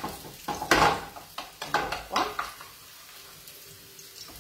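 Wooden spoon stirring and scraping through a garlic-and-onion soffritto sizzling in oil in a steel frying pan. Several uneven scrapes come in the first couple of seconds, the loudest a little under a second in, then only a quieter steady sizzle.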